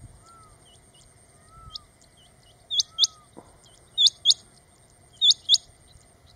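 Male rain quail calling: three pairs of sharp, high squeaky notes, one pair about every second and a quarter, starting a few seconds in. Fainter calls of other birds sound behind.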